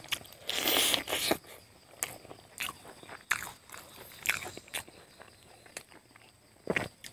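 Close-up eating sounds: chewing with short wet mouth clicks, and fingers gathering rice across a banana leaf. The loudest is a longer rustling scrape about half a second in.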